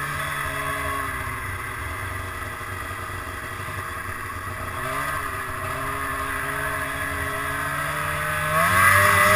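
2002 Arctic Cat ZR 800's two-stroke twin engine running at cruising speed, easing slightly, then picking up about five seconds in. Near the end it revs up sharply and gets much louder as the sled accelerates.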